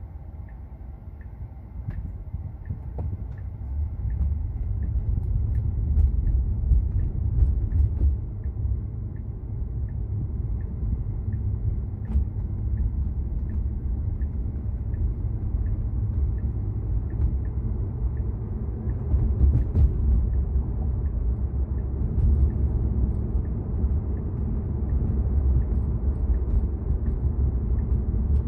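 Low road and tyre rumble of a Tesla driving on Full Self-Driving, heard inside the cabin, growing louder a few seconds in as the car picks up speed. An evenly paced turn-signal tick runs through roughly the first ten seconds.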